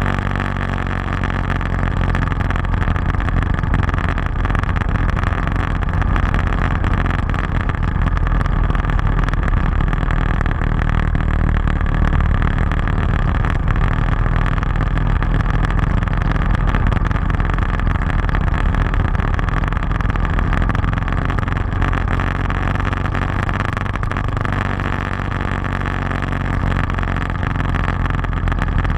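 Motorcycle engine running steadily under way, heard from the bike itself, with a constant rush of wind and road noise.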